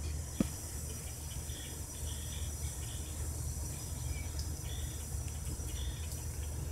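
Outdoor ambience: a steady low rumble with faint, short, high chirps scattered through it and a single sharp click about half a second in.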